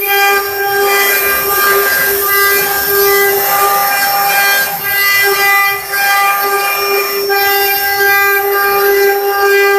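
CNC wood-carving router spindle whining steadily at a high pitch while it cuts wood, over a continuous hiss. The upper overtones of the whine come and go as the cut changes.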